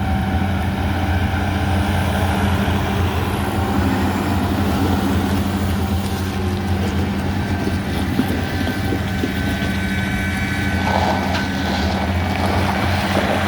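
Engine running steadily at an even, low pitch.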